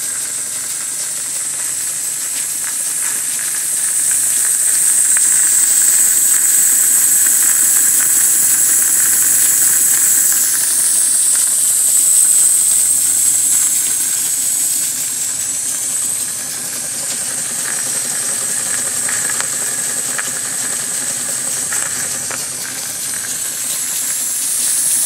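Home-built four-cylinder oscillating steam engine running on live steam at about 30 psi: a steady, loud hiss of steam, swelling slightly a few seconds in.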